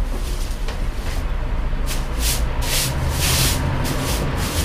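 Repeated scratchy brushing strokes on a hard surface, about two a second and getting stronger about two seconds in, over a steady low rumble.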